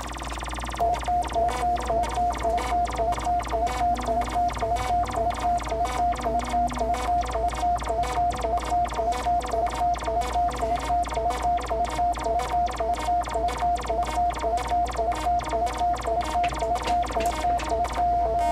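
Korg littleBits synth kit, patched with extra oscillators and sequencers, playing a rapid, even sequence of short electronic beeps on one held pitch, with a lower note alternating in. About a second in it switches to this from a steady buzzy drone, and near the end the pulsing gives way to a steady held tone.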